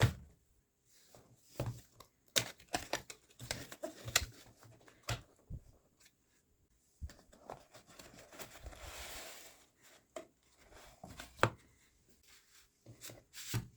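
A gaming-mouse box being handled and unpacked by hand: scattered taps, knocks and clicks of cardboard and plastic packaging, with a few seconds of rustling about seven seconds in.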